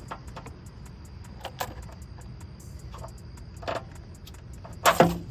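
Scattered clicks and knocks of intake parts and tools being handled in a car's engine bay, ending in a loud clatter of two quick knocks, over a steady low hum.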